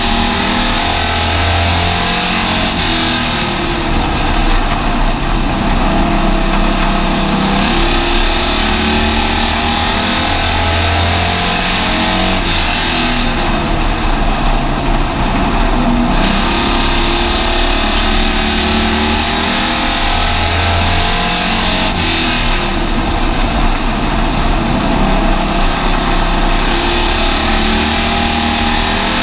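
Hobby stock race car's engine heard from inside the car, running hard at race pace. It swells and eases in a repeating cycle about every nine seconds, once per lap of the oval as the driver goes through the turns and straights.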